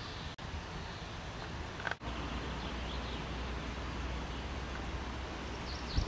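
Quiet outdoor ambience: a steady low rumble of wind and handling noise on the camcorder microphone, with faint high chirps around the middle. The sound cuts out briefly twice, near the start and at about two seconds.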